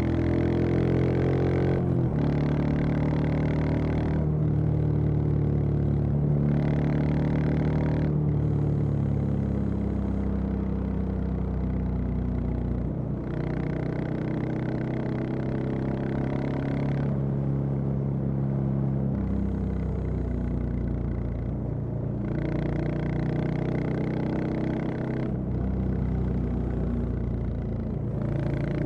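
Royal Enfield Classic 350's single-cylinder engine and exhaust running while riding. The pitch rises under throttle in the first couple of seconds, then steps down and up several times with gear changes and throttle between stretches of steady running.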